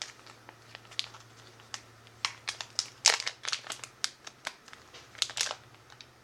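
Plastic packaging of a wax tart crinkling and crackling as it is handled and opened, in irregular clusters of crackles, loudest about three seconds in and again near the end.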